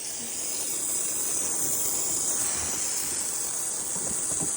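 Garden hose spraying water in a steady hiss, washing down a pig pen.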